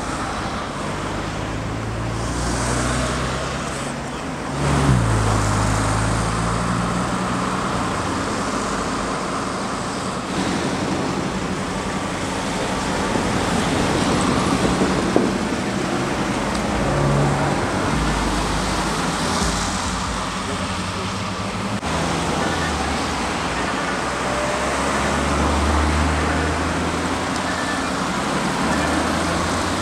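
Road traffic noise: motor vehicle engines humming and passing, with a louder vehicle going by about five seconds in, its pitch dropping.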